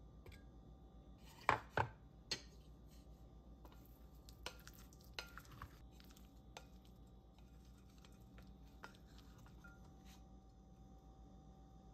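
Scattered knocks and light clinks of kitchen utensils and dishes at irregular intervals, loudest a pair of knocks about a second and a half in, over a faint steady hum.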